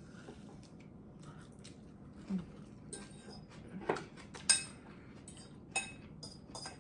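Utensils and dishes clinking and knocking while eating: a handful of sharp clinks, the loudest about halfway through, amid small scrapes and taps.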